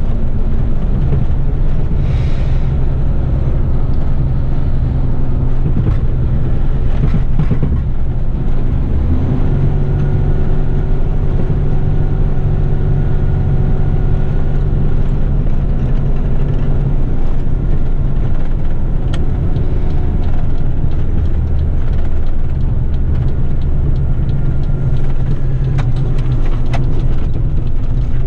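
Heavy rigid truck's diesel engine and road noise, heard from inside the cab while driving. There is a steady low rumble, and the engine note shifts a few times as the truck changes speed.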